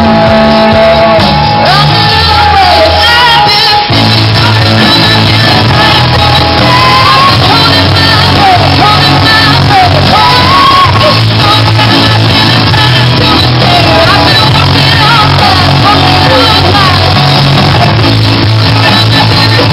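Live rock band playing at loud volume, with electric guitars and drums under a woman singing lead into a microphone.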